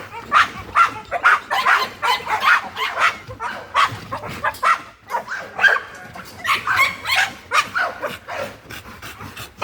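Pit bull–type dog barking and yipping excitedly: short, high calls, two or three a second, in quick runs with a brief lull midway.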